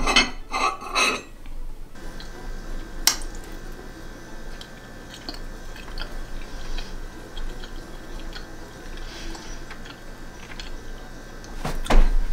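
A metal fork scraping and clinking on a plate several times as a piece of food is cut and picked up, then one sharp clink about three seconds in, followed by quiet chewing.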